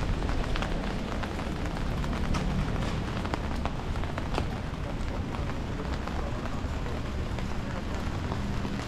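Steady rain falling on a wet street, with scattered sharp ticks of individual drops.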